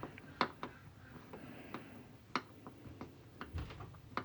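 Scattered faint, sharp clicks and taps from small screws, a hand tool and plastic parts being handled while screws are driven into a 3D printer's filament-unit stand; the loudest clicks come about half a second and two and a half seconds in.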